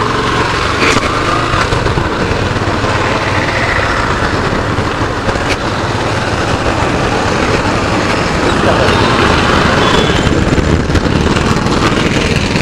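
Yamaha FZ V3.0 motorcycle's single-cylinder engine running steadily under way, mixed with a steady rush of wind over the microphone.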